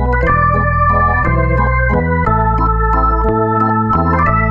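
Background music: sustained organ-like keyboard chords over a bass line, the notes changing together about once a second.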